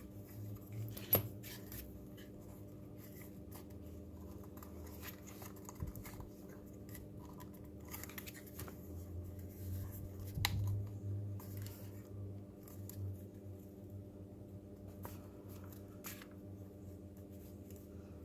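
Plastic robot-kit body halves handled and pressed together: faint scraping and light clicks, with a sharp click about a second in and a louder knock about ten seconds in, over a steady low hum.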